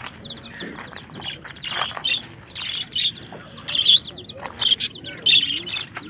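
Many small caged birds chirping and calling at once, a dense chorus of short, high chirps.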